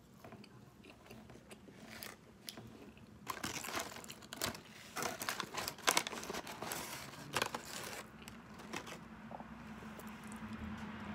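Paper fast-food wrapper and bag crinkling and rustling in a run of sharp crackles for several seconds in the middle as fries are picked out by hand, with quiet chewing around it.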